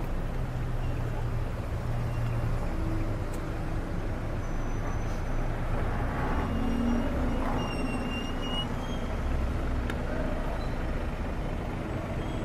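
Car engine and traffic noise heard from inside a slow-moving car: a steady low rumble of engines and tyres, with other cars close alongside.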